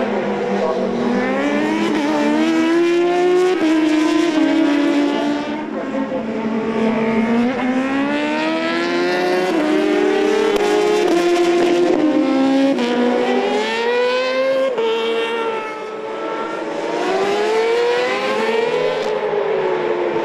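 Superbike racing motorcycle engines at high revs, the pitch climbing through the gears with sudden steps at each shift and falling away as the bikes brake, one after another, for the whole stretch.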